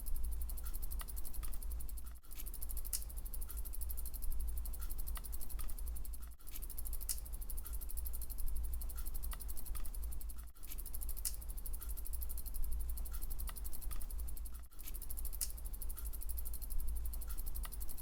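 Bicycle wheel turning, its freewheel ratchet ticking in a fast, steady run of clicks with a few stronger clicks among them, over a low hum. The same pattern repeats about every four seconds.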